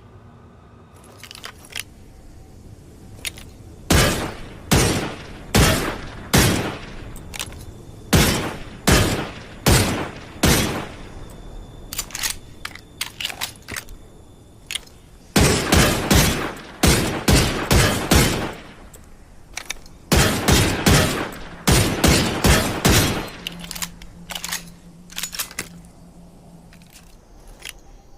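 Handgun sound effect: runs of sharp single shots, each with a short ringing tail, in groups separated by pauses with fainter clicks. The shots in the later groups come faster.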